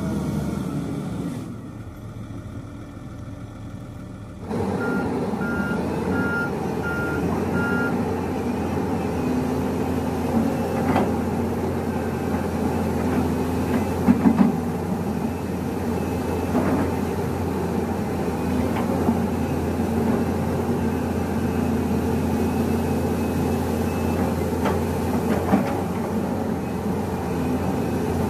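Diesel engine of a Volvo wheeled excavator running steadily as it works, with a short row of five warning beeps about five seconds in. Scattered sharp knocks, loudest around the middle, as the bucket digs into a pile of gravel and rock.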